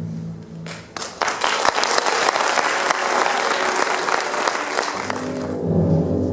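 Audience applauding for about four seconds in a theatre, starting about a second in; the ballet music comes back in near the end.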